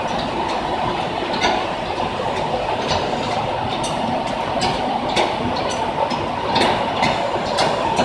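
Biscuit cone making machine running, a steady mechanical clatter with frequent sharp metal clicks at irregular intervals as its plates and cone-rolling arms move.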